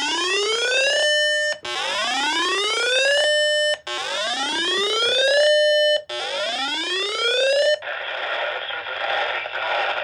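Uniden handheld scanner sounding a weather-alert tone: four rising whoops about two seconds apart, each climbing and then holding its pitch, signalling an incoming severe thunderstorm warning. About eight seconds in, the tone stops and gives way to radio hiss.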